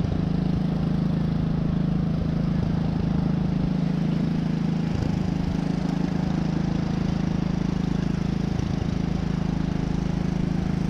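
An engine running steadily at an even pitch, a constant mechanical hum.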